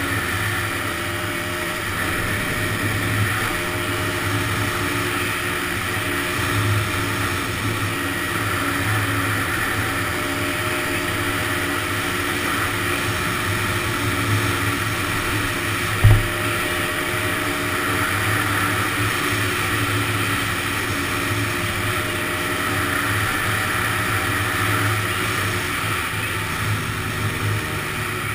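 Honda ATC 250R three-wheeler's two-stroke single-cylinder engine running at a fairly steady pace while being ridden, with one sharp knock about sixteen seconds in.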